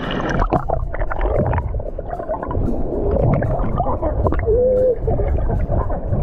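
River water splashing and gurgling close by as people move through it, dense and irregular throughout, with brief muffled voice sounds.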